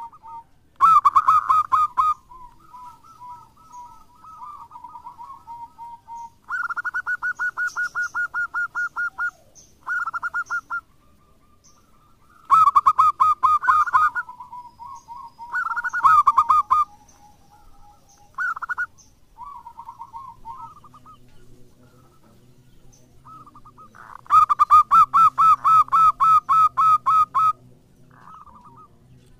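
Zebra dove (perkutut) cooing: several trains of rapid, staccato coos lasting one to three seconds each, with softer cooing between them; the longest train comes near the end.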